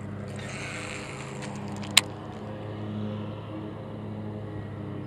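A distant engine running steadily, a low drone. There is a single sharp click about two seconds in.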